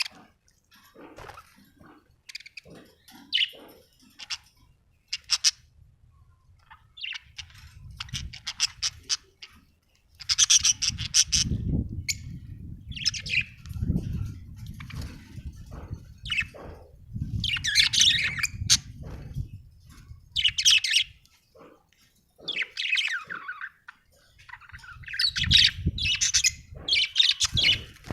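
Budgerigars chirping in short bursts, sparse at first, then busier and louder from about ten seconds in.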